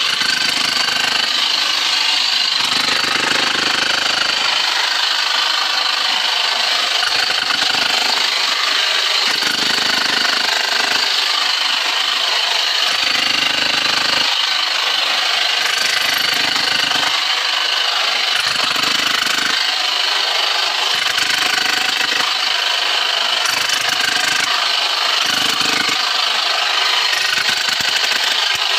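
Handheld jackhammer chipping into rock at a mine tunnel face, running continuously with a loud, dense hammering rattle. Its lower, heavier note comes and goes every second or two as the miner works the bit against the rock.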